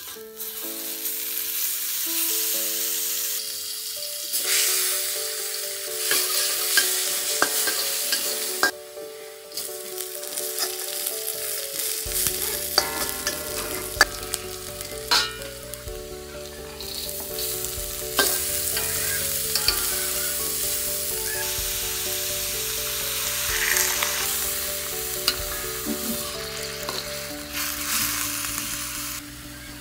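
Food sizzling in hot oil in a pan while a spatula stirs it, with frequent short scrapes and clicks against the pan.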